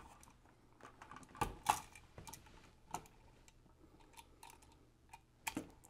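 Scattered light clicks and taps as a new rocker light switch, its wires and its metal mounting strap are pushed back into the electrical box, with two sharper clicks about a second and a half in.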